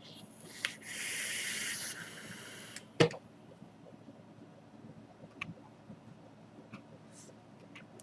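Sub-ohm vape being drawn on: air hissing through the dripping atomizer as the 0.23-ohm coil fires, for about two and a half seconds, loudest in the middle. A single sharp knock follows about three seconds in.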